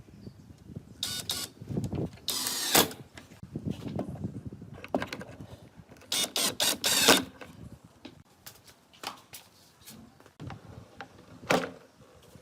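A small electric power tool run in several short bursts of under a second each, with knocks and handling of wood between them. There is a sharp knock near the end.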